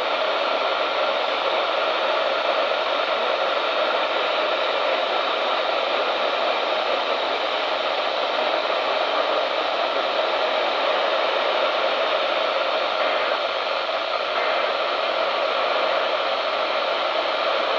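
Steady hiss of radio static from a weather radio receiver, even and unbroken.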